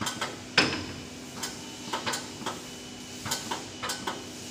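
A series of about ten sharp metallic clicks and clanks, the loudest about half a second in, as parts of a paper roll slitting machine are handled by hand, over a steady hum.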